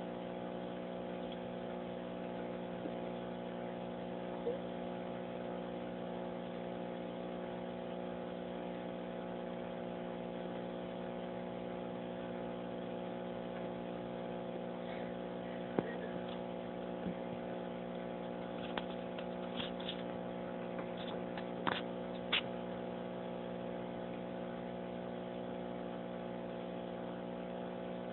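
A steady, unchanging hum, with a few faint clicks in the second half.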